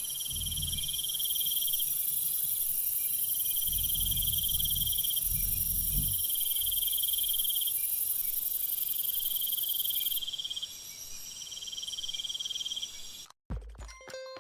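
Crickets and other meadow insects trilling: a dense, high-pitched continuous trill, with a lower chirp repeated in phrases about a second long. The high trill fades out about 10 seconds in, and the insect sound cuts off abruptly about a second before the end.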